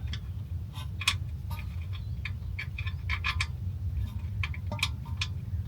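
Light metal clicks and taps at an irregular pace, a bolt knocking against the brake and hub hardware as it is fished for its threaded hole, over a steady low hum.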